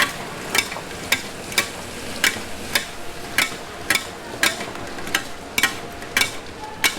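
A metal utensil knocking against a metal pan or wok in an even rhythm, about two sharp ringing strikes a second, over a steady sizzling frying haze.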